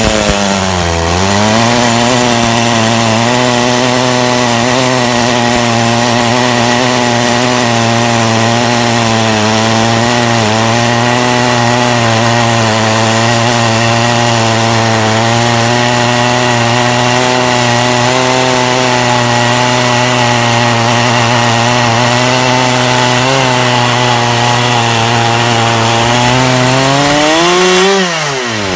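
Portable sawmill's chainsaw engine running under load through a log on a lengthwise cut. It bogs down about a second in, holds a steady pitch through the cut, then revs up near the end as it breaks free and drops away as the throttle is released.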